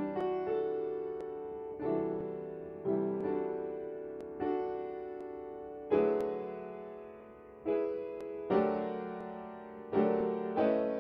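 Piano playing slow chords, each struck and left to ring and fade, about one every second or two.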